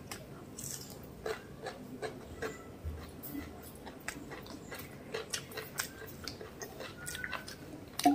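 Close-miked chewing of mutton biryani: irregular mouth clicks and wet smacking sounds as she chews, with one sharper, louder click near the end.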